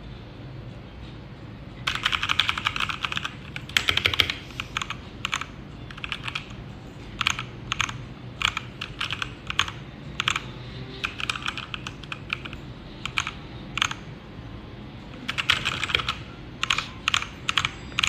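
Typing on a Redragon K617 Fizz 60% compact mechanical keyboard. The keys clack in quick runs about two seconds in and again near the end, with single presses spaced out between.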